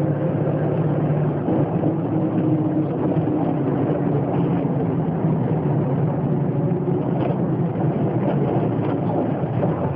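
Volkswagen 17.230 EOD bus's diesel engine running under way, a steady drone whose pitch drifts slightly up and down.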